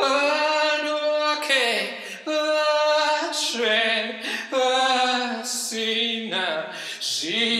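A man singing a cappella with no accompaniment, holding a string of long notes, some gliding down in pitch and some wavering.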